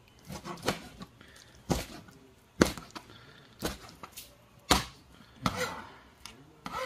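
Kitchen knife chopping raw lobster tail meat, the blade knocking down onto the cutting board about six times, roughly once a second.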